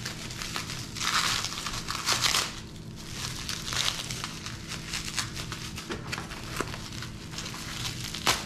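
Plastic bubble wrap crinkling and rustling in irregular bursts as hands pull it apart to unwrap a small packed item, with a few light clicks and a sharper click near the end.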